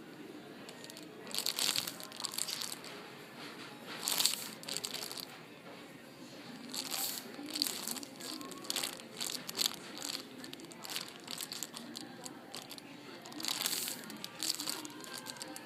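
Crinkly plastic packaging of a foam squishy toy being handled and squeezed, in irregular crackling bursts with short pauses between them.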